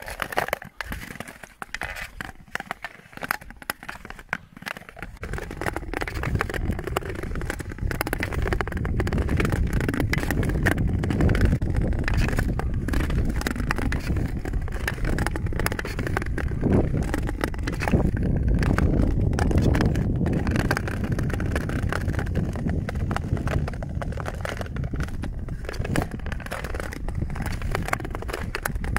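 Ice skate blades scraping and gliding over clear lake ice, a steady run of strokes. About five seconds in the sound grows louder and fuller in the low end.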